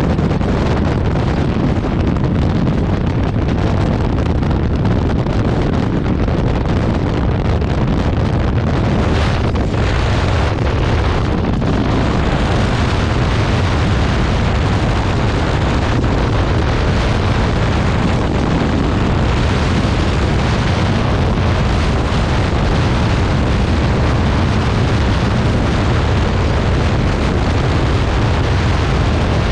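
Heavy wind buffeting and rushing on the microphone of a Honda ADV 150 scooter cruising at about 112–115 km/h, a loud, steady roar with the scooter's running noise buried underneath.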